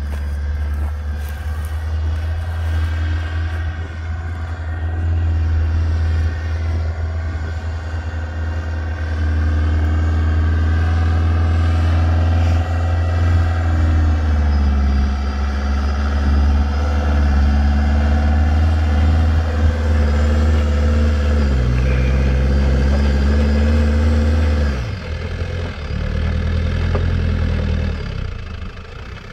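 The M1163 Growler's engine pulling hard under throttle up a steep hill of loose dirt, getting louder as it climbs closer. Its note shifts up and down, then drops off sharply near the end as the throttle comes off.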